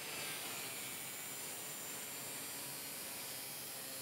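Angle grinder with an abrasive cut-off wheel, mounted in a sliding chop-saw jig, cutting through metal stock: a steady hissing grind.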